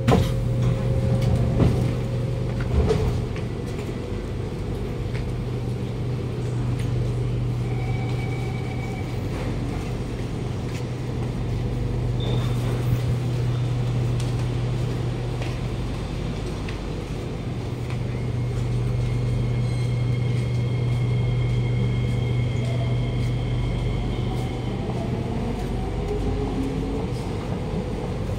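Kawasaki Nippon Sharyo C751B metro train standing at a platform with its doors open, its onboard equipment giving a steady low hum over a rumble. A few knocks sound in the first seconds, and faint rising whines come near the end.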